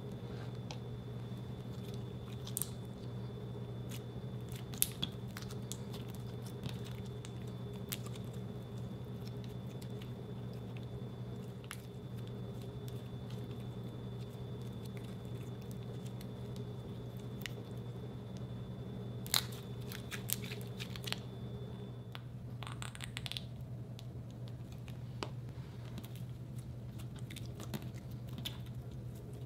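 Clear slime worked by hand, pressed, stretched and pulled, giving scattered sticky clicks, pops and crackles over a steady low hum. A faint high whine stops about three-quarters of the way through.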